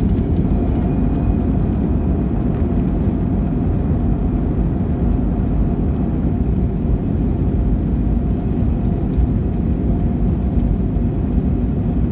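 Airbus A320-200 cabin noise during take-off: a loud, steady rumble of the engines at take-off power and the runway roll, with a faint engine whine over it.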